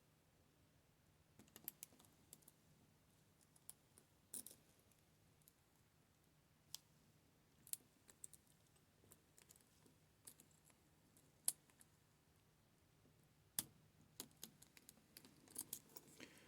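Faint, scattered metallic clicks and ticks from a lock pick and tension wrench working the pins inside an Abus padlock, coming at irregular intervals with a couple of sharper clicks near the end.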